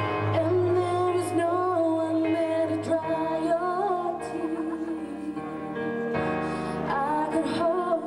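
A singer performing a slow song live over instrumental backing, the voice gliding and wavering over sustained chords and bass notes.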